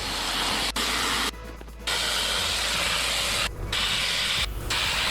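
Sandblaster spraying abrasive in a steady hiss, blasting the inner mounting ring of a go-kart wheel rim clean ahead of welding. The blast stops briefly three times as the trigger is let off, with the longest pause a little over a second in.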